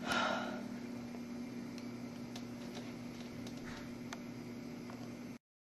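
Steady low electrical hum with background hiss and a few faint ticks, after a brief hiss at the start; the sound cuts off suddenly about five seconds in.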